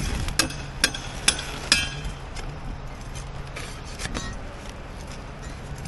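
A metal hand tool striking repeatedly during an asphalt-shingle roof tear-off. There are five sharp, ringing blows a little over two a second, then a few lighter knocks.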